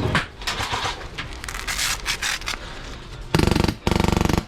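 Rustling and scuffing of gear and movement, then near the end two loud bursts of rapid full-auto fire from an airsoft electric rifle, its gearbox buzzing rapidly and evenly.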